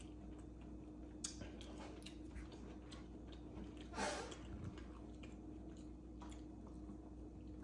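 Quiet chewing with faint small clicks over a low steady hum. About four seconds in, a glass jar of ice water is picked up with a brief clink and rattle of ice, the loudest sound.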